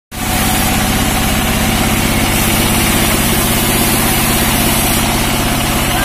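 Sawmill machinery running steadily, driven by an engine, with a fast, even low throb under a constant mechanical hiss.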